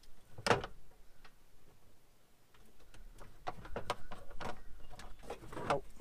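Small clicks and knocks of wires and connectors being handled inside an aluminium box while hooking up to a battery: one sharp click about half a second in, then a run of small clicks and rattles in the second half.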